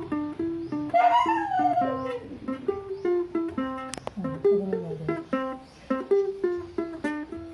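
Ukulele picking a melody in single plucked notes, several a second, with a sharp click about four seconds in.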